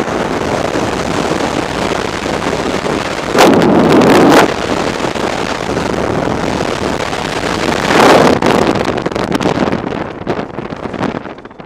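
Freefall wind rushing over a skydiver's camera microphone, a steady loud roar with two louder surges about three and a half and eight seconds in. Near the end the rush thins and drops as the jumper is under an open parachute.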